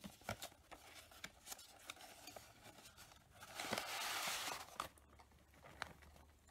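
Packet of cornstarch handled over a bowl: light clicks and taps, then a burst of crinkling rustle about three and a half seconds in that lasts about a second, as the cornstarch is tipped in.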